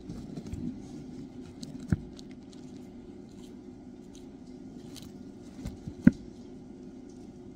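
Sulcata tortoises biting and tearing at a hibiscus flower, with faint crackling and small clicks of chewing and of shuffling in dry mulch. Two sharp knocks stand out, one about two seconds in and a louder one about six seconds in.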